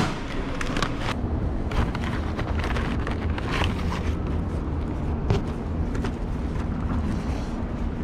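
Paper takeout bag rustling and crinkling as it is handled, in short irregular crackles, over a steady low rumble.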